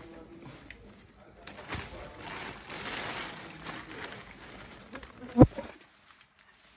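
Fresh leaves rustling as they are handled and pressed into a clay pot, with a woven plastic bag crinkling. A single sharp knock a little over five seconds in is the loudest sound.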